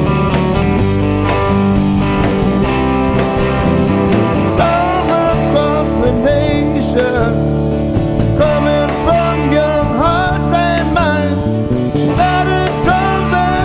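Live rock band with electric and acoustic guitars, electric bass and drums playing a mid-tempo song. A male lead vocal comes in about four and a half seconds in.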